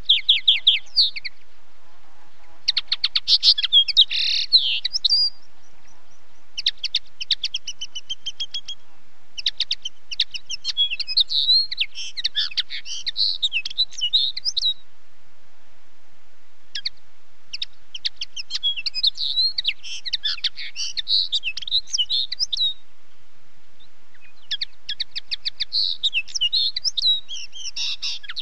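Common linnet singing: about six phrases of fast twittering, each opening with quick repeated notes and running into varied warbling, with short pauses between them.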